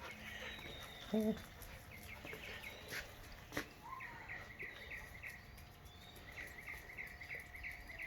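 Birds chirping in the background in quick runs of short, repeated chirps. About a second in, a brief low-pitched animal call stands out as the loudest sound. A couple of sharp clicks follow around three seconds in.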